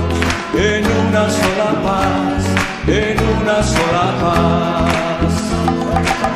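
Recorded Christian worship song playing: a steady bass line under a pitched melody that slides between notes, with guitar and singing.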